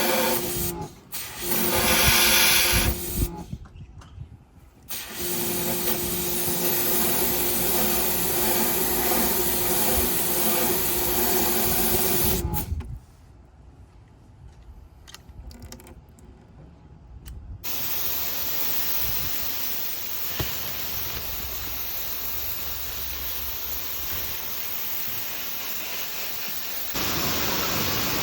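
Pressure washer running and spraying water through a fan-jet nozzle in stretches, a steady pump-motor hum under the hiss of the spray. It stops briefly now and then. A steady spray hiss fills the second half.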